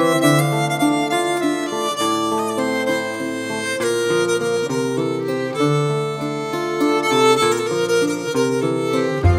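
Instrumental background music, a melody of steady sustained notes that changes every fraction of a second.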